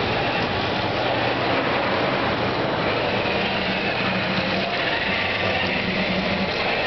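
Steady, dense background din of a busy event hall, even and unbroken, with a faint low hum.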